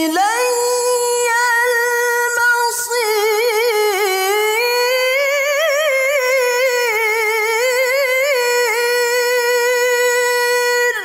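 A woman reciting the Quran unaccompanied in tarannum style, in maqam Nahawand in its jawab (higher) register, drawing out the closing words "ilayya al-mashir" in one long breath. The held phrase wavers in fine ornaments, climbs in the middle and settles back to its starting pitch, then stops near the end with a brief echo.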